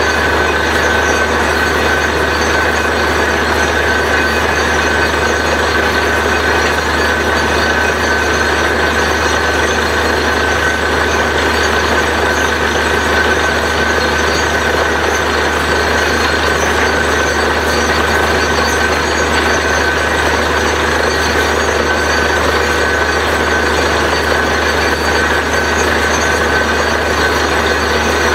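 Truck-mounted borewell drilling rig running steadily at drilling: the engine drones with a constant low hum and a steady high whine over it.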